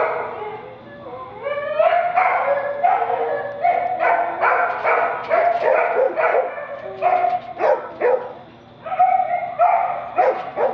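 A woman singing unaccompanied, a slow melody in short sung syllables with a few sliding notes.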